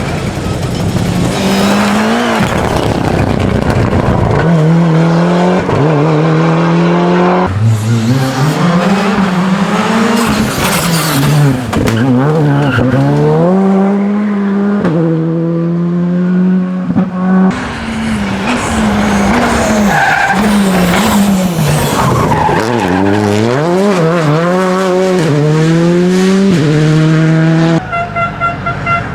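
A rally car's engine revving hard, climbing in pitch through the gears and dropping back again and again between bursts of acceleration, with tyre skid noise. Near the end a short series of rapid, evenly spaced beeps comes in.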